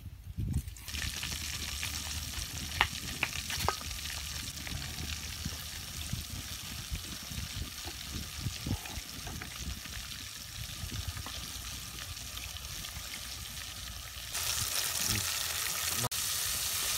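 Breaded chicken legs deep-frying in hot oil in a metal pot: a steady sizzle with a few sharp crackling pops early on, stepping up to a louder hiss about fourteen seconds in.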